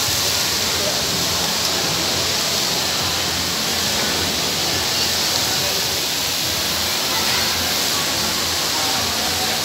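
Steady hiss of falling water from a large indoor fountain spraying into its basin.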